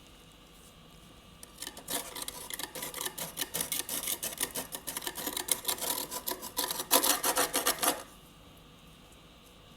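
Built-up freezer frost being scraped in a quick run of short, scratchy strokes. The strokes start about one and a half seconds in, grow louder, and stop abruptly about two seconds before the end.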